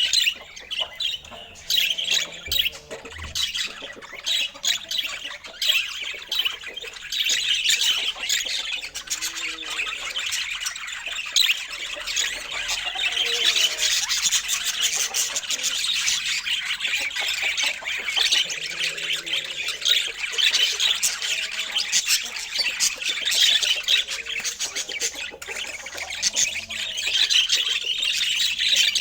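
Budgerigars chattering and warbling without pause: a dense stream of quick chirps, clicks and squawks.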